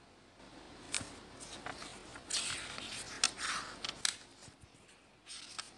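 Book pages being turned and flipped by hand: a series of short, crisp paper rustles and flicks, starting about a second in.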